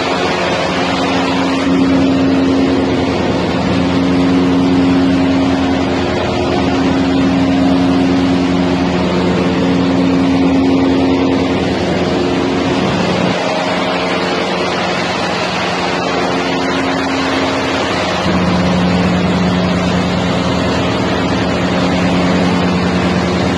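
Waste-tyre granulator line running: a loud, steady machine drone with a strong motor hum that swells and eases every few seconds over a constant rushing noise.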